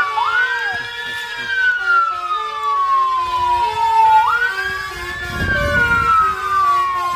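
Police escort siren on a wail pattern: the tone jumps up quickly, then falls slowly, and the cycle repeats about every four seconds. A vehicle's low engine rumble swells about five to six seconds in.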